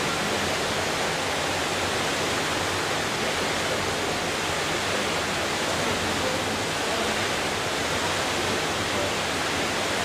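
Steady, even rushing noise of an indoor diving-pool hall, with no distinct events.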